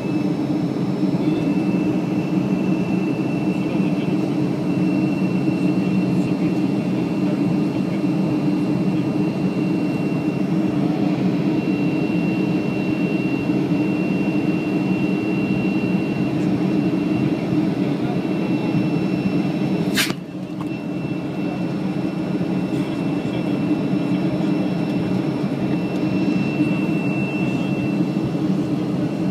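Boeing 737-500's CFM56-3 turbofan running steadily at climb power after takeoff, heard inside the cabin beside the wing: a deep, even rumble with a thin steady high whine from the fan. About two-thirds of the way through there is a single sharp click and a brief dip in the noise.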